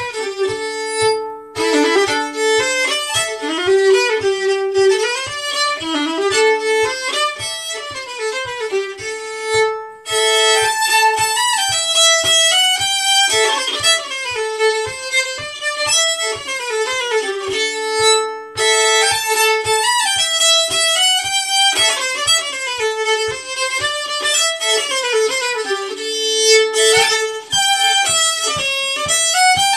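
Solo fiddle playing an old-time dance tune, the bowed melody moving over a held drone note, with a steady low thumping beat underneath.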